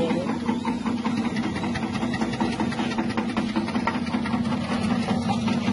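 Electric chip-slicing machine's 180-watt motor running steadily with a low hum, its spinning blade disc giving a fast, fine rattle.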